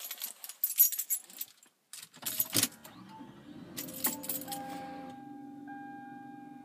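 Keys jangling as the ignition key is handled, then the Lexus RX330's 3.3-litre V6 starts about two seconds in and settles to a steady idle hum, with a steady high tone over it.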